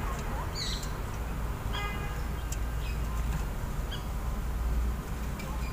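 Birds chirping now and then in the background, short high calls about once a second, over a steady low rumble.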